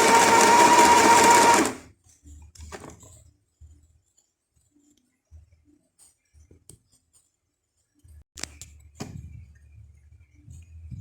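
Sew Simple sewing machine's small electric motor running as it sews a short line of stitch number 5: a steady whine with the needle's rapid stitching, stopping about two seconds in. Then a few faint clicks from handling the machine near the end.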